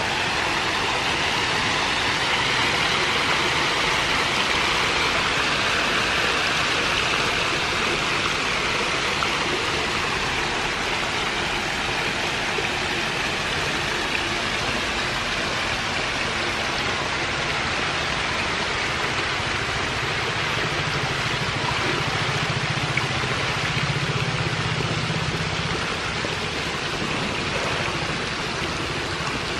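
Steady watery splashing and rippling of a dense mass of baby hybrid magur catfish churning the shallow water at the surface as they go for floating feed. A low hum joins in for several seconds past the middle.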